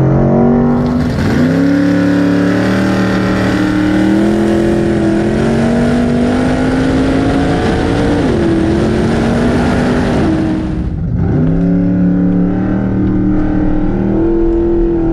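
Big-tire drag truck's 434-cubic-inch V8 running hard down the drag strip. Its pitch dips and recovers a few times, about a second in and again near eight and eleven seconds.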